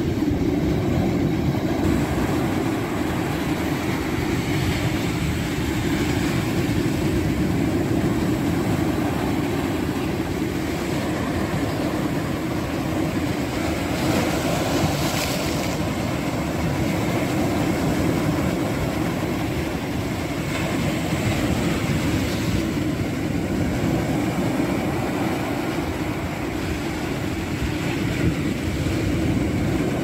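Ocean surf breaking and washing over a rocky shore: a continuous low rumble of waves and foam that swells every several seconds, with the clearest crash about halfway through.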